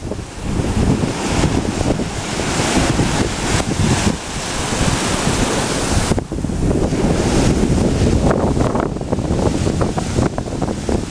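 Sea surf washing up the sand and breaking around rocks in a steady hiss and rumble, with wind buffeting the microphone.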